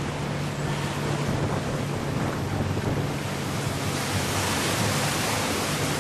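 Inflatable motorboat under way: a steady low motor hum beneath the rush of water along the hull and wind buffeting the microphone. The hiss swells and brightens about four seconds in as the boat passes under a bridge.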